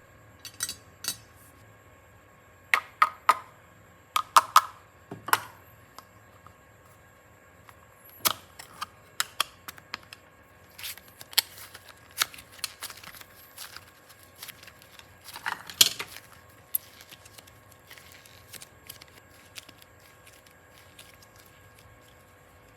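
Scattered small clicks, taps and light rattles of small objects being handled at close range, in uneven clusters with a few louder taps, over a faint steady hum.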